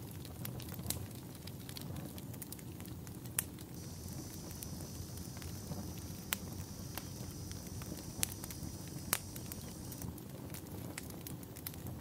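Burning brush crackling: scattered sharp pops and snaps over a low rumble. A steady high-pitched buzz comes in about four seconds in and stops about ten seconds in.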